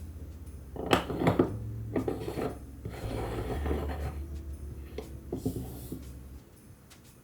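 Household objects being handled: a few light knocks and clinks about a second in and again near five seconds, with rustling and rubbing between them.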